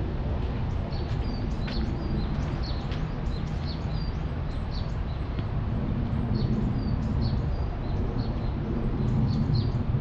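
Small birds chirping, many short separate chirps, over a steady low background rumble that grows slightly louder near the end.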